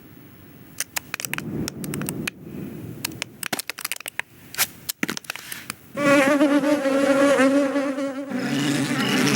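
A scattered run of small, sharp clicks and ticks, then about six seconds in a loud insect wing buzz with a wavering pitch starts up. Near the end it changes to a lower buzz.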